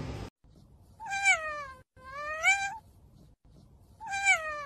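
A domestic cat meowing: three long, drawn-out meows, the first and third sliding down in pitch and the second sliding up.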